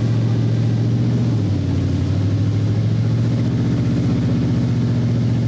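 Mobile crane's engine running steadily at constant speed, a low, even hum whose tone shifts slightly about a second and a half in.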